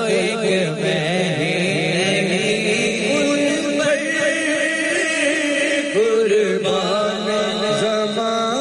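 A man singing a Punjabi naat into a microphone, holding long, wavering, ornamented vocal lines.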